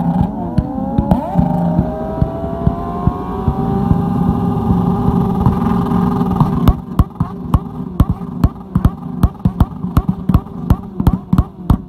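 Several motorcycle engines held at high revs, their pitch climbing over the first few seconds. About two-thirds of the way in this gives way to a rapid run of loud exhaust bangs, roughly three or four a second: backfires with flames out of the exhaust, from an engine bouncing on its rev limiter.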